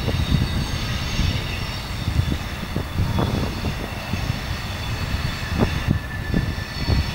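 Former South Australian Railways Bluebird diesel railcar moving slowly around a curve: a continuous low rumble of the running diesel and wheels, with a high steady squeal from the wheel flanges on the curved track.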